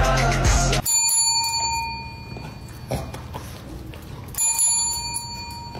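Music cuts off about a second in, then a bell rings twice, about three and a half seconds apart, each ring a bright metallic ding that fades over a second or so.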